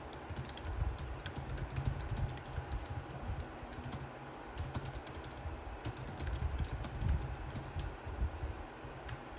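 Scattered light clicks and knocks of PVC pipes and plastic connectors being handled, over a low rumble.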